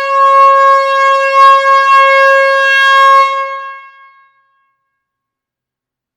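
Air horn sounding one long, loud blast at a steady pitch, dying away about four seconds in.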